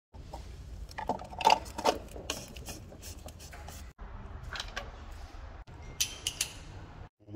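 Hand tools clinking and clicking as they are handled, among them a torque wrench, over a steady low workshop hum. The loudest clinks come in a cluster between one and two seconds in, with a sharper run of clicks about six seconds in, and the sound drops out briefly a few times.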